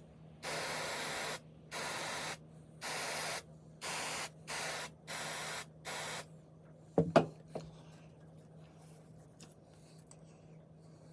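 Aerosol cleaner spray hissing in seven short bursts, then two or three sharp knocks about seven seconds in.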